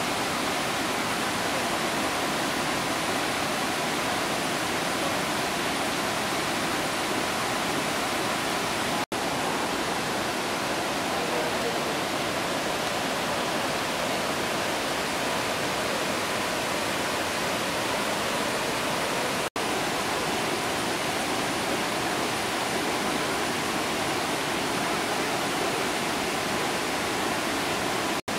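Steady rushing roar of a waterfall and rapids in monsoon flood, the Chalakudy River pouring over rocks at Vazhachal Falls. It cuts out for an instant twice, and again near the end.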